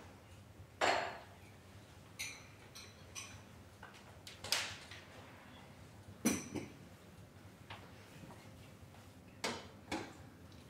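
Scattered clinks, knocks and taps of small hard objects being handled, about ten in all at uneven gaps, a few with a brief high ring. The loudest come about a second in and a little past the middle.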